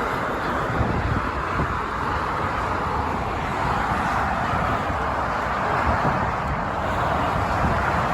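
Steady roar of road traffic on a motorway, a continuous tyre and engine hiss that swells and eases slowly as vehicles pass.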